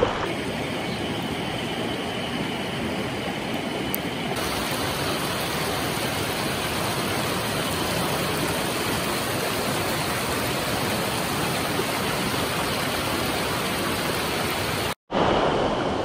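Mountain stream rushing over rocks and shallow rapids: a steady, even rush of water, broken by a momentary gap near the end.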